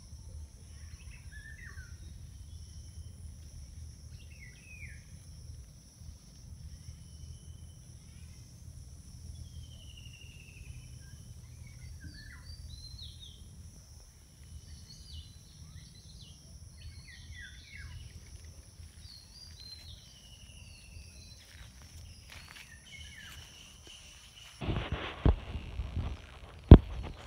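Outdoor ambience: scattered short bird chirps over a steady high insect drone and a low rumble. Near the end come a few loud thumps and knocks, the loudest sounds here.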